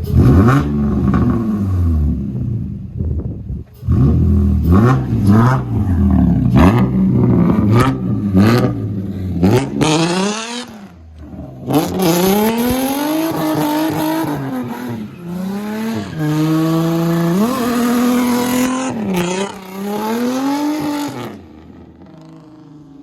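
Car engine revved hard again and again, its pitch rising and falling, as in drifting. After about 12 s it climbs in steps, with a hiss over it, then drops away near the end.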